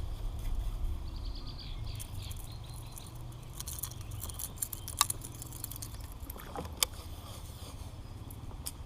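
Wind rumbling on the microphone, with two sharp clicks or knocks, one about five seconds in and another near seven seconds.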